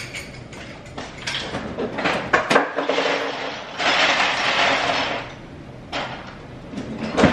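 Ice water being made in a cup: scattered knocks and clinks of the cup and ice, with a rushing clatter lasting over a second about four seconds in.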